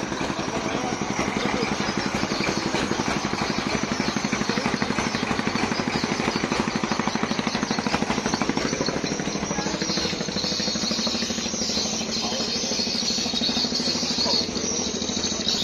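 A boat's engine running with a fast, steady chugging that weakens after about ten seconds, when a hiss comes up.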